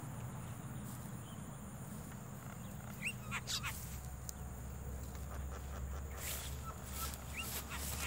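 Javan mynas calling near the lime-stick trap: short rising chirps and harsh calls in two clusters, about three seconds in and again about six seconds in, over a low steady rumble.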